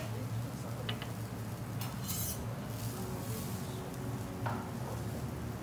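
Steel teppanyaki spatulas clinking and scraping on a steel flat-top griddle as the chef handles a block of beef, a few sharp metal clicks over a steady low hum.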